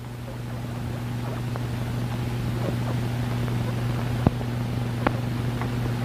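Poison gas hissing steadily into a sealed room, growing louder over the first couple of seconds, over a low electrical hum, with a sharp click about four seconds in.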